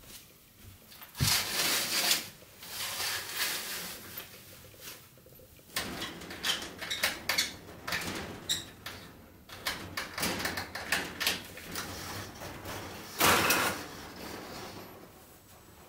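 Curtains drawn back along their rail, with rustling and bursts of sliding. Next come a run of small clicks and rattles at the window. Near the end a wooden-framed sliding glass window is slid open along its track, the loudest sound.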